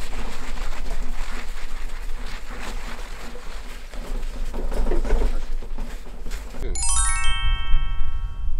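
Cloth scrubbing and rubbing on the hot metal top plate of a round space heater, with background music. Near the end a swooping sound effect gives way to a cascade of ringing chime tones that step down in pitch and hang on.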